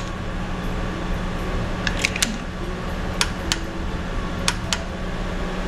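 Click-type torque wrench working the oil pan drain bolt as it is tightened to 35 N·m, giving a few sharp, irregular clicks over a steady low hum.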